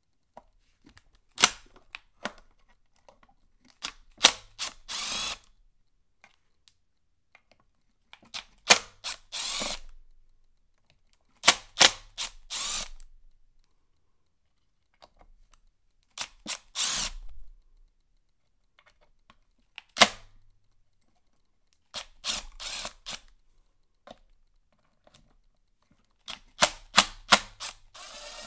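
Milwaukee M12 cordless impact driver with a flathead bit hammering in short bursts of about a second, seven or eight times, backing out the flathead screws that hold the chainsaw's crankcase side cover.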